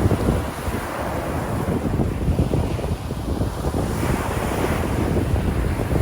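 Sea waves washing in, swelling twice, under heavy wind buffeting the microphone.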